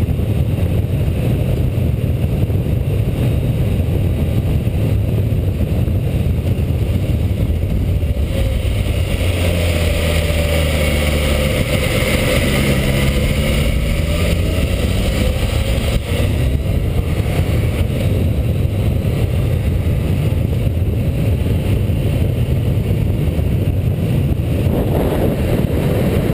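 Motorcycle engine running at road speed with steady wind rush. About ten seconds in, the engine note dips and then climbs again as the bike takes a bend.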